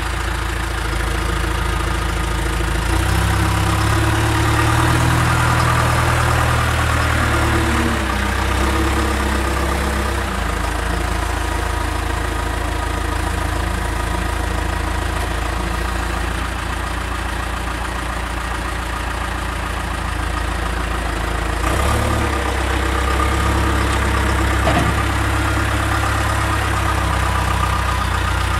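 Backhoe loader's engine running, speeding up twice as the controls are worked, then settling back to idle. A couple of short knocks are heard in the second half.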